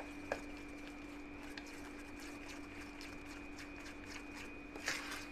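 Wire hand whisk mixing cake batter in a steel bowl: faint, irregular clicks and scrapes of metal on metal, with a slightly louder knock near the end, over a steady low hum.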